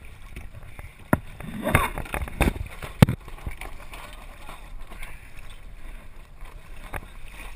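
Water sloshing and splashing against a small sailboat's hull close by, with a few knocks about a second in and one sharp bang about three seconds in.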